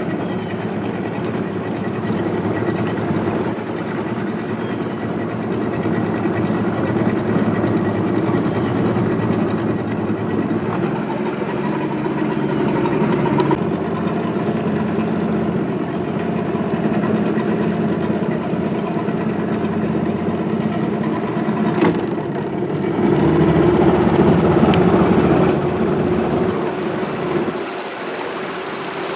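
Boat motor running steadily underway, rising a little in level for a few seconds near the end.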